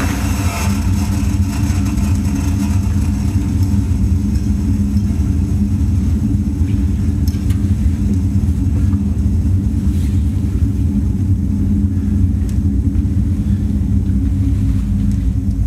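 Steady, loud low rumbling drone, part of the recorded sound score played through the theatre's speakers for a dance piece, with a few faint ticks now and then.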